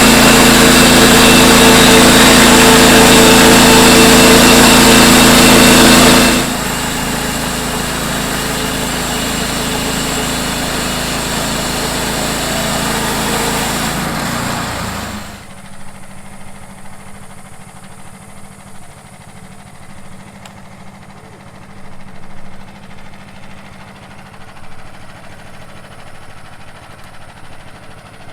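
Timbertuff band sawmill's gas engine running at high speed, dropping to a lower speed about six seconds in, then shutting off about fifteen seconds in.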